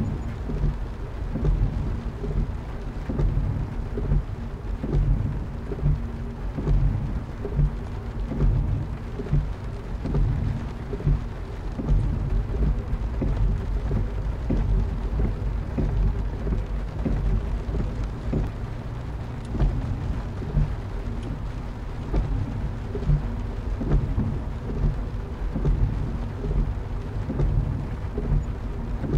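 Rain hitting a car window, heard from inside the car: a steady deep rumble of rain with frequent, irregular louder drop hits.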